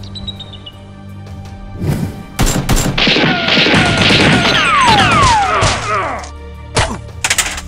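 A volley of gunfire sound effects over background music. There are sharp shots about two seconds in, then a dense rapid burst with several falling whistling tones from about three to six seconds, and two more shots near the end.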